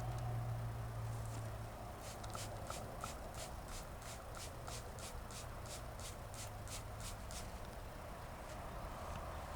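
Hand spray bottle of sugar water squirted rapidly over package bees, about three quick hissing squirts a second for some five seconds, starting about two seconds in.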